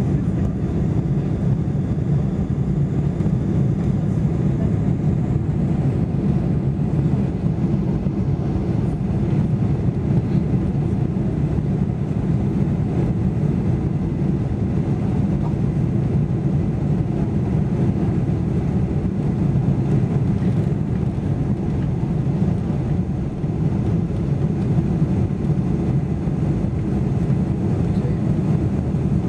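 Boeing 747-400 cabin noise during the climb after takeoff: the steady, deep roar of its four turbofan engines and the airflow, heard from inside the cabin over the wing with the flaps still extended.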